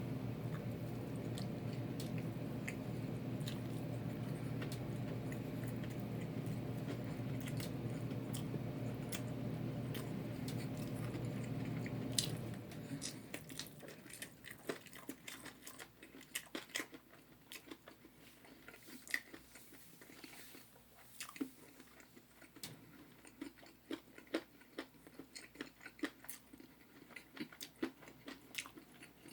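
Close-up chewing and crunching of spicy Korean fried chicken, with many sharp crunchy clicks. A steady low hum sits under the first twelve seconds or so and then cuts off suddenly, leaving the chewing on its own.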